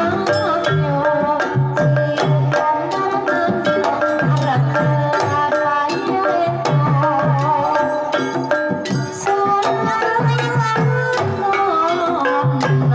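Banyumasan gamelan playing a gending: kendang hand-drum strokes over struck bronze saron and bonang metallophones and gongs, with a female sindhen singing a wavering melody over the ensemble.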